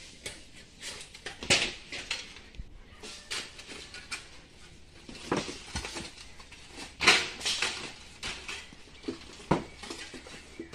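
Irregular clattering knocks and taps of hard objects being handled, with two louder sharp clacks about a second and a half in and about seven seconds in.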